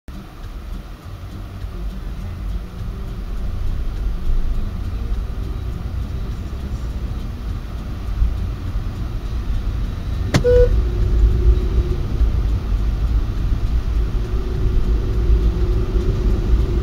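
Car driving, heard from inside the cabin through a dash-cam microphone: a steady low engine and road rumble that slowly grows louder. About ten seconds in there is a sharp click followed by a short tone.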